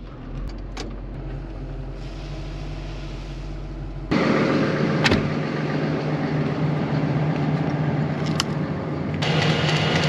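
Engine of a piece of heavy equipment running steadily, getting suddenly much louder about four seconds in, with a couple of sharp clicks.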